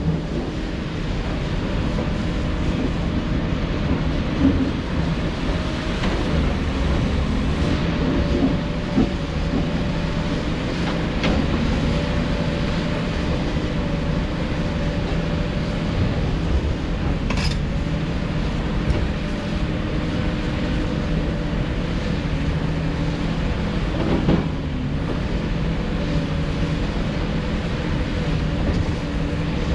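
Heavy diesel earthmoving machinery running steadily, a low engine drone with a sharp metallic click about seventeen seconds in and a knock about twenty-four seconds in.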